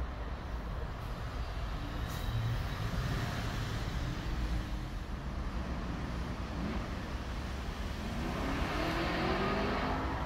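Steady rumble of road traffic, with a vehicle's engine note rising as it accelerates near the end.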